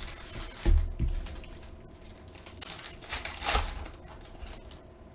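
Trading-card box and pack wrappers being handled as the next box is opened: two soft thumps in the first second, then a rustling crinkle of wrapper for about a second in the middle.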